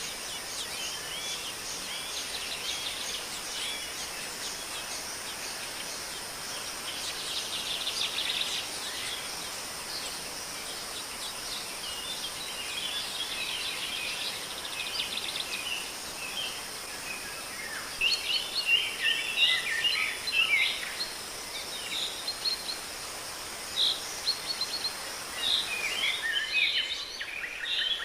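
Small birds chirping in quick bursts of short calls, more often and louder in the second half, over a steady high insect drone.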